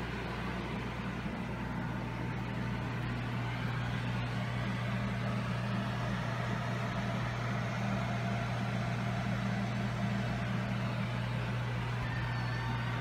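Steady electrical hum with an even hiss from running aquarium equipment, the air pumps and filters of a room of fish tanks.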